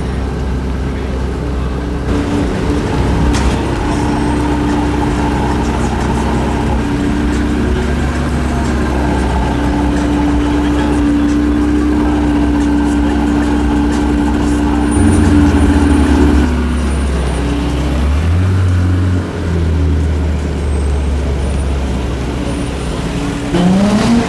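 Porsche 918 Spyder's V8 engine running at low speed, a steady engine note that shifts in pitch a couple of times and rises briefly near the end.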